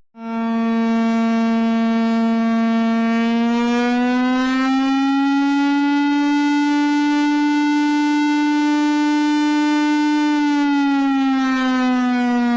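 An emergency alarm siren tone: one loud, buzzy, steady wail that starts suddenly, rises a little in pitch about four seconds in, holds, then slides back down near the end.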